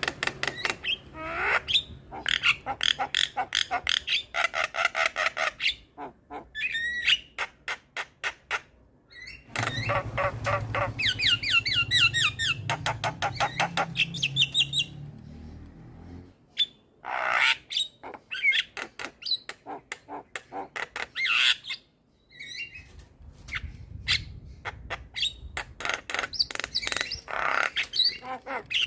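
Javan myna singing a varied run of harsh squawks, rapid clicking rattles and short whistled, gliding notes, broken by brief pauses.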